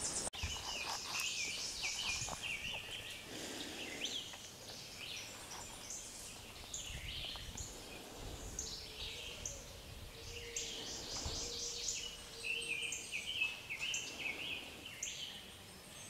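Faint woodland ambience: small birds chirping and trilling in short repeated notes.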